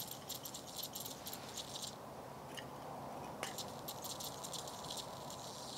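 MSR Dragonfly fuel-bottle pump being worked by hand to pressurize the white-gas bottle: a fast clicking rattle in two runs, pausing briefly about two seconds in.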